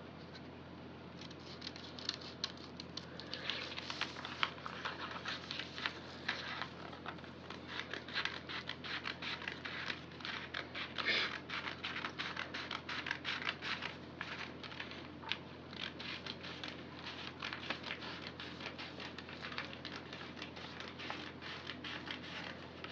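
Scissors cutting through pattern paper in quick repeated snips, several a second, with the paper rustling as it is turned and handled.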